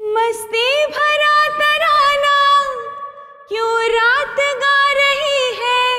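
A woman singing wordless held notes, sliding between pitches, in two long phrases with a short breath between them about three seconds in.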